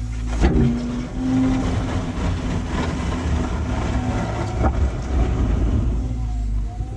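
Diesel engine of heavy earthmoving equipment working under load, its low rumble uneven, with sharp metal clanks about half a second in and again near the five-second mark.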